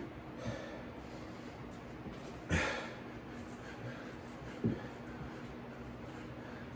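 A man breathing hard through push-ups: one sharp breath out about two and a half seconds in, and a short low thump about two seconds later, over a faint steady hum.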